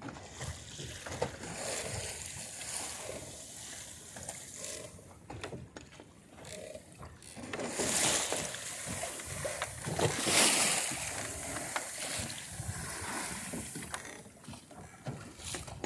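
Water rushing and splashing along the hull of a small wooden sailboat under way in choppy water, with two louder surges of splashing a little past the middle.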